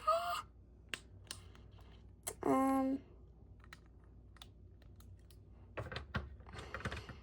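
Plastic LEGO bricks clicking and rattling as pieces are handled and pressed together, scattered single clicks at first and a busier patch of rattling clicks near the end. About two and a half seconds in, a short hummed vocal note is heard.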